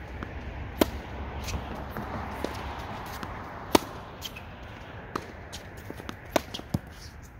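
Tennis ball hit with a racket and bouncing on the court: sharp single pops every second or so, the loudest about a second in, near the middle and near the end, with fainter hits and bounces between.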